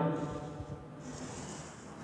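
Chalk scratching faintly on a blackboard as a line is drawn, a soft high hiss in the second half.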